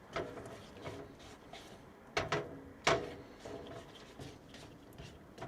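Light clatter of cookware and utensils being handled: scattered knocks and clicks, the sharpest two a little over two and about three seconds in.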